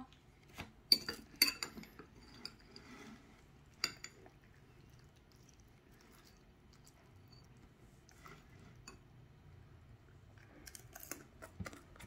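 Metal fork clinking and scraping against a ceramic bowl: a few sharp clicks in the first seconds, one more about four seconds in, a quiet stretch, then a cluster of clinks near the end.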